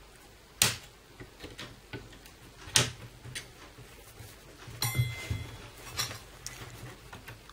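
Plastic snap clips of a Dell Latitude E7250 laptop's case popping loose as the case halves are pried apart with a plastic pry tool. There are sharp clicks about half a second in and just before three seconds, then a cluster of clicks with a brief squeak around five seconds, and another click near six, with small ticks of handling in between.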